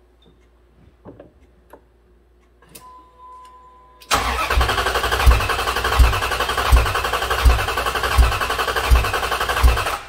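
Starter cranking a Dodge 4.7 L V8 in clear flood mode, so the engine turns over without firing, starting about four seconds in. The cranking cadence is uneven, with one stronger beat about every three quarters of a second, which the mechanic takes for low compression in one cylinder; the fault turned out to be a cam follower that had spit out of the number 4 exhaust valve.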